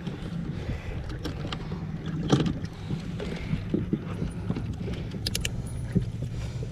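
A steady low hum from the bass boat, with scattered plastic clicks and knocks as a smallmouth bass is fastened to a culling clip and lowered into the livewell. The loudest knock comes about two and a half seconds in, and a quick run of sharp clicks comes near the end.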